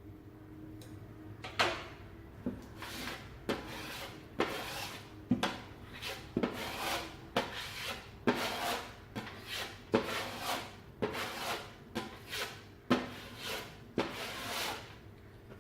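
Putty knife spreading fine filler into a hole in a plaster wall: a long run of short scraping strokes of the blade across the wall, about one or two a second, starting a second or so in.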